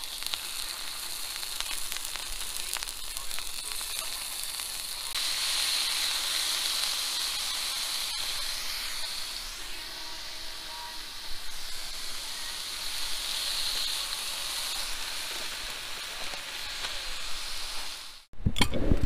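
Diced venison sizzling as it fries in a pan on a portable gas canister stove. The sizzle grows louder about five seconds in and cuts off suddenly near the end.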